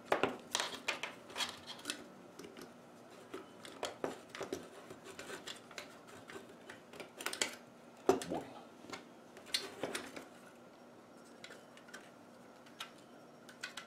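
Circuit boards and the monitor's sheet-metal chassis being handled and fitted together: irregular light clicks, taps and small metallic clatter. There are a few louder knocks in the middle and fewer sounds near the end.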